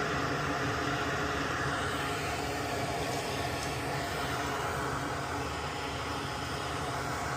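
Steady hum of a running motor, an even whir holding several constant tones that does not change.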